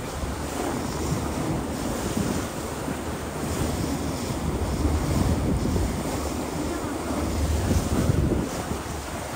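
Wind buffeting the microphone on the deck of a moving river cruise boat, a gusting low rumble over the steady rush of the boat's passage through the water.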